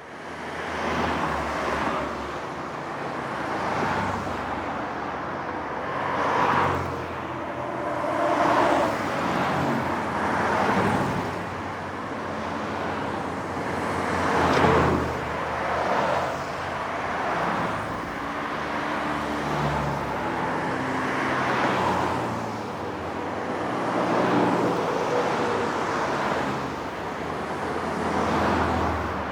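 Highway traffic: a continuous stream of cars passing, the tyre and engine noise swelling as each vehicle goes by every couple of seconds. The sound fades in from silence at the very start.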